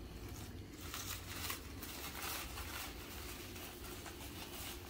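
Crumpled white packing paper rustling and crinkling in the hands as it is pulled off wrapped stones in a cardboard box, in irregular handfuls starting about a second in.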